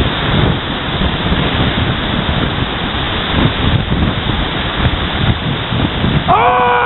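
Steady rushing of wind buffeting the microphone over the glacial river pouring out from under the ice. Near the end a voice calls out briefly.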